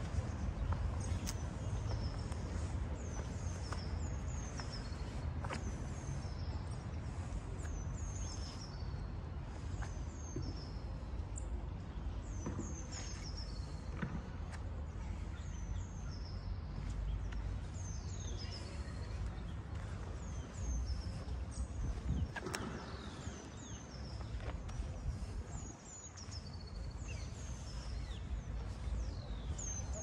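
Many small birds chirping in short, repeated high calls throughout, over a steady low rumble of outdoor street ambience, with a few scattered clicks.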